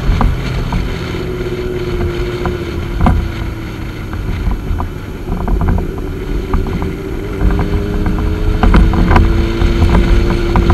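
Motorcycle engine running at a steady cruise, its pitch creeping up slightly in the second half, under heavy wind buffeting on the camera's microphone.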